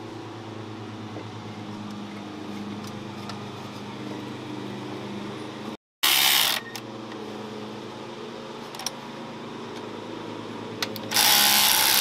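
Cordless ratchet running in short bursts as it drives in differential cover bolts: two bursts, one about half a second long about six seconds in and one just over a second long near the end, over a steady low hum.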